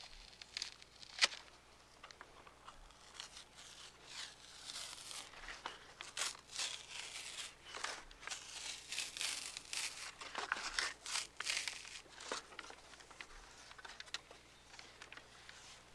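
Thin wooden strips being split and shaved by hand with a knife: a run of short rasping, tearing strokes, densest in the middle, with a sharp click about a second in.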